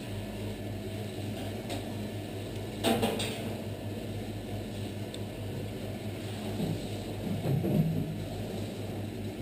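Steady low mechanical hum, like a kitchen appliance or fan running, with one short knock about three seconds in.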